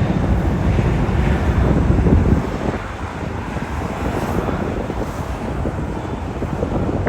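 Wind buffeting the microphone, with a heavy low rumble that drops off suddenly about two and a half seconds in, leaving a lighter, steadier rush of wind.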